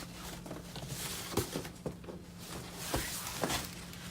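Rustling and a few light knocks from handling a fabric storage bag with a stiff plastic insert.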